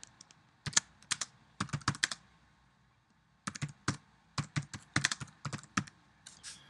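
Computer keyboard keys being typed in two quick runs of keystrokes, with a pause of about a second between them.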